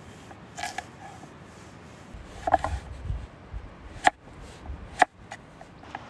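Kitchen knife slicing a cucumber on a wooden cutting board: scattered sharp knocks of the blade on the board, the two loudest about four and five seconds in.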